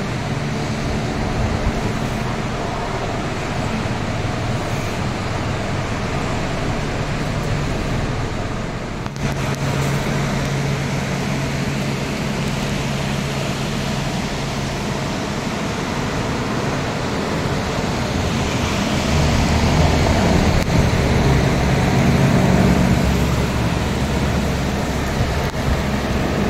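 Steady outdoor rushing noise under a low, even engine-like hum of a vehicle. About twenty seconds in, the rushing swells as the fast-flowing river Rur comes close.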